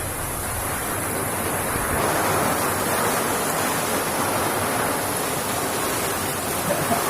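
Storm noise of strong wind and heavy rain: a steady, loud rushing that swells slightly about two seconds in.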